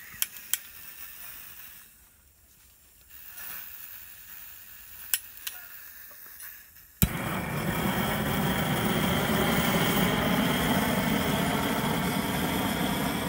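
Propane pilot torch on a homemade flamethrower wand: a few light clicks, then about seven seconds in a sharp click as it lights, followed by the steady loud rushing of the burning torch flame.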